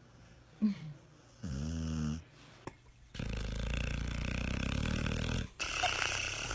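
Dog snoring in its sleep: a short snore about one and a half seconds in, then a longer, louder snore of about two seconds, and another starting near the end.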